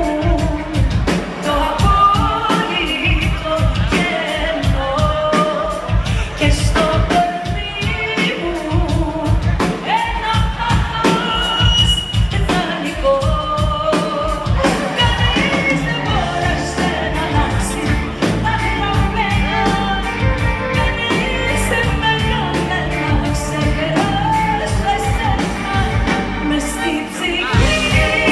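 Live pop band playing with a woman singing lead over a steady drum beat.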